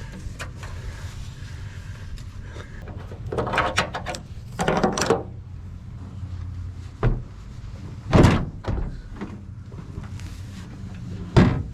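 Clunks, scrapes and a few sharp thuds from taking the tailgate off a pickup truck, over a steady low hum.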